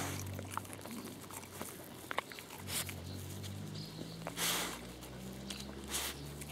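Dog sniffing and mouthing a peanut shell in grass. Scattered small crunches and clicks come through, along with several short puffs of breath.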